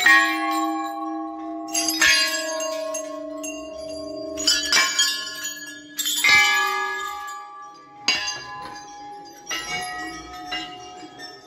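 Temple bells being struck one after another, each strike ringing on with several clear overlapping tones; about seven strikes, the later ones fainter.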